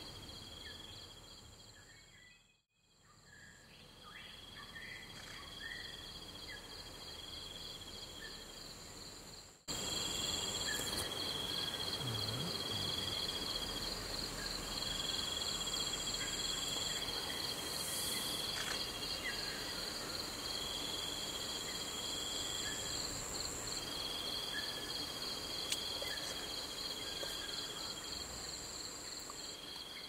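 Insect chorus in tropical forest: a steady, rapidly pulsing high trill with other insects buzzing over it in repeated phrases a few seconds long. The sound fades out and back in near the start, then cuts in louder about ten seconds in.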